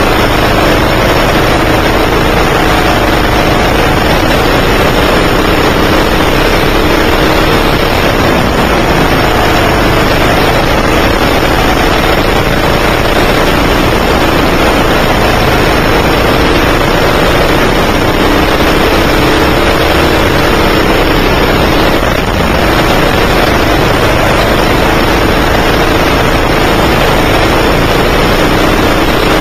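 A 9 hp kart engine running hard, heard up close from the kart itself, loud and continuous, its pitch rising and falling with the throttle through the corners and straights.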